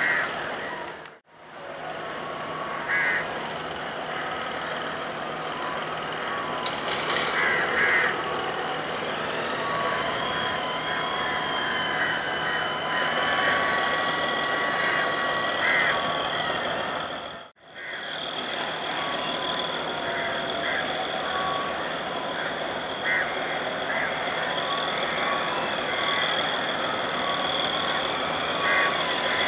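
Sri Lanka Railways diesel train running slowly, with short high-pitched tones and a steady high tone over it. The sound cuts out briefly twice.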